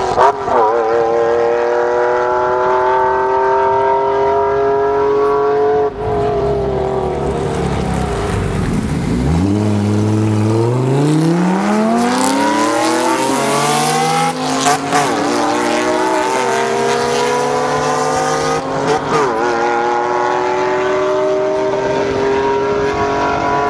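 Lamborghini Diablo SV's V12 with an X-pipe exhaust launching from a standing start in a drag run. The revs climb steeply, with quick upshifts and the note rising again after each, and a second car launches alongside. Before that, an engine holds high revs far off, its note falling slowly.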